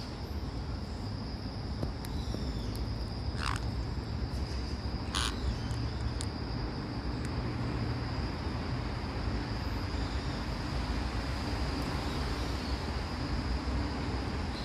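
A pet caique parrot giving two brief calls about two seconds apart, over a steady low hum and a faint high whine.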